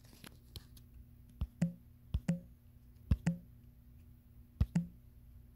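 Handling noise on a phone that is recording: four pairs of light knocks spread over the few seconds, each pair about a fifth of a second apart, with a brief low hollow ring on the second knock.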